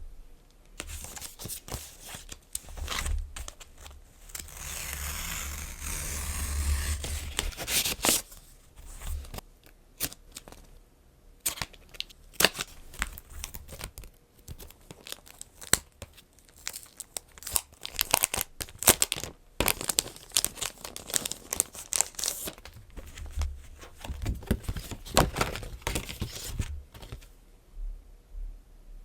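Packaging being torn open and crinkled by hand, with a longer tearing stretch about four to eight seconds in and many small clicks and taps of handling.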